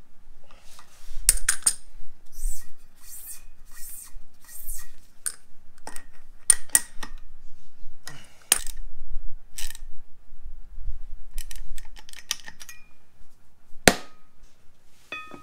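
Hand tools working the spindle nut on a VW Beetle front disc-brake hub: scattered metal clicks and clinks of wrench and socket on the nut and rotor, with a quick run of about five short noisy strokes a couple of seconds in and one sharp clink near the end.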